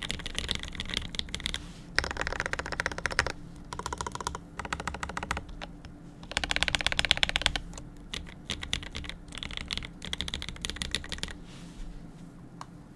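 Abasic mechanical keyboard with lubed and filmed Vermillion Bird switches and GMK keycaps being typed on: fast runs of keystroke clicks in bursts of one to three seconds with short pauses between, thinning to a few faint keystrokes near the end.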